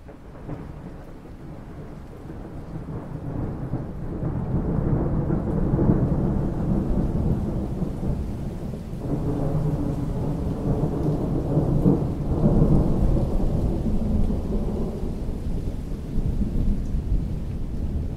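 Long rolling thunder rumble over steady rain, building over the first few seconds and swelling again about two-thirds of the way through.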